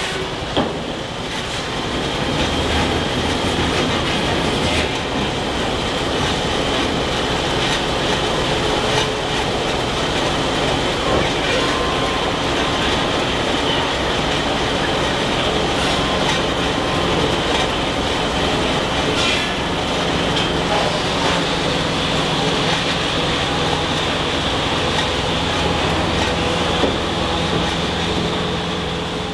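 Steam-powered sawmill machinery running steadily, belt-driven from an old locomotive boiler's engine: a continuous mechanical din with a few short clicks and knocks.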